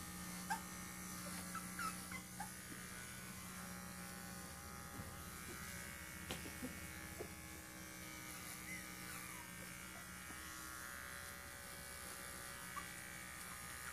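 Small electric pet trimmer buzzing steadily as it clips a three-week-old puppy's head and face, with the puppy giving brief high squeaks now and then.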